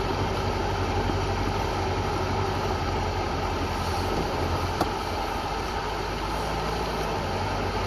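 Suzuki Samurai's 1.3-litre four-cylinder engine running steadily at low speed, heard from inside the cab, with road noise from the dirt track and a single sharp knock about five seconds in.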